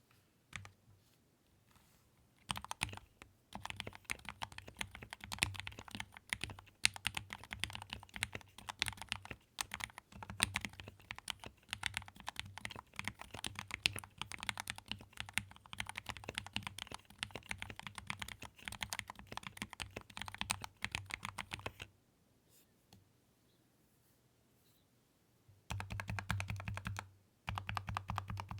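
Typing on a Keychron mechanical keyboard: fast, continuous keystroke clacks for about twenty seconds, then a pause of a few seconds before the typing starts again near the end.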